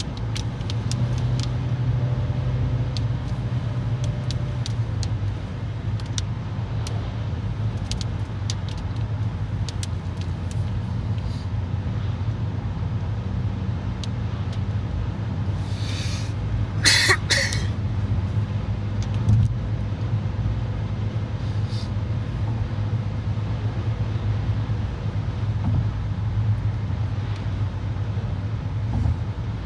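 Steady low road and engine noise inside a car cruising on a motorway, with a brief sharp noise about 17 seconds in.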